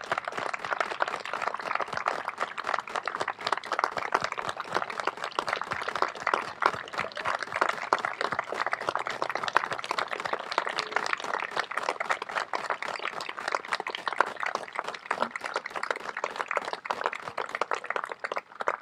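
Crowd applauding steadily, the clapping thinning out and dying away near the end.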